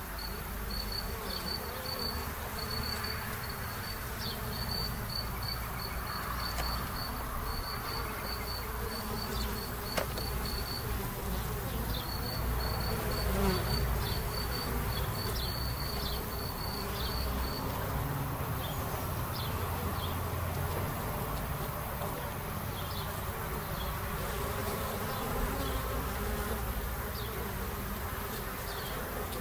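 Honeybees buzzing steadily at the entrance of a Warré hive as foragers fly in and out. A high, rapidly pulsing trill runs in the background through roughly the first half, with a brief break about 11 seconds in.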